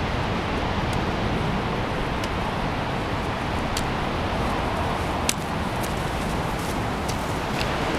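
Wind buffeting the microphone in a steady, heavy rush. A few sharp clicks from the trekking poles and footsteps of a hiker walking past come through it, the strongest about five seconds in.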